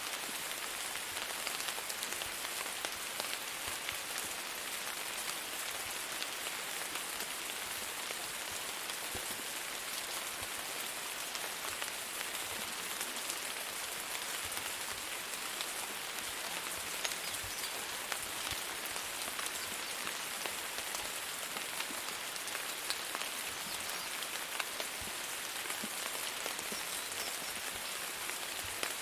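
Steady rain falling on a surface, an even hiss with many small drop ticks, no thunder.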